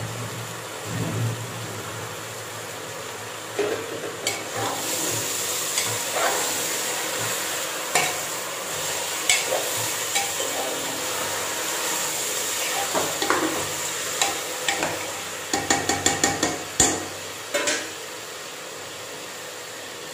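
Mutton sizzling in hot oil with fried onions and ginger-garlic paste on a high flame in an aluminium pressure cooker pot, as a spoon stirs it, scraping and knocking against the metal sides. Near the end comes a quick run of sharp spoon knocks on the pot.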